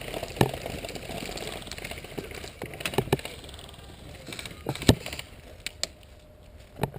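A few scattered sharp clicks and knocks, about five or six over several seconds, over a low steady outdoor background.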